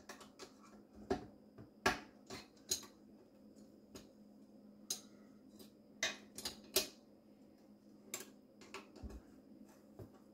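Irregular metallic clinks and taps of a screwdriver working at the garbage disposal's mounting ring under a stainless steel sink, prying the retaining ring loose.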